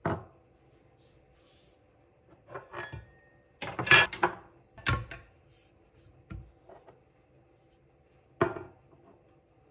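Espresso gear being handled on a countertop: a string of separate knocks and clinks as a glass, a small metal cup and the portafilter are picked up and set down. The loudest knocks come in a cluster around the middle, with a last one near the end.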